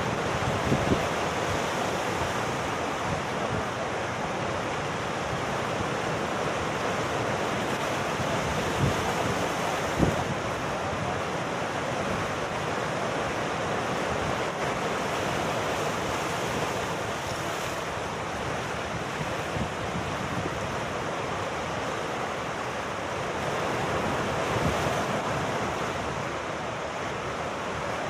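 Sea surf breaking and washing among shoreline rocks, a steady rushing of water, with wind gusting on the microphone in a few brief low thumps.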